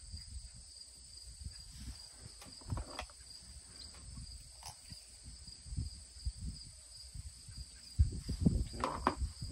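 Steady, high-pitched insect trilling, with low rumbling that grows louder near the end and a few faint clicks as the parts of a medication dart are handled.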